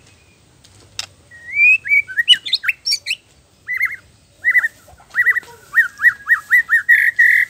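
White-rumped shama (murai batu) singing: after a sharp click about a second in, a varied phrase of rising whistles and glides, then, after a short pause, quick runs of repeated clear notes that grow loudest near the end.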